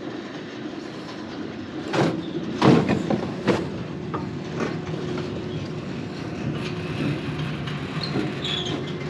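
Alpine coaster sled's wheels rolling along its steel rail track, a steady rumble, with a few sharp clacks and jolts about two to three and a half seconds in as the sled runs into the end-of-track section.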